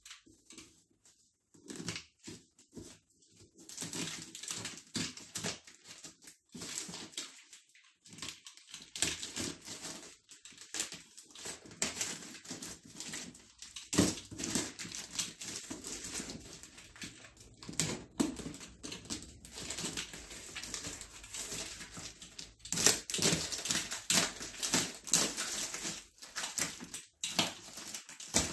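Black plastic wrapping and packing tape on a cardboard parcel being slit with a utility knife and pulled open by hand: crinkling, scraping and tearing in irregular bursts, busier in the second half.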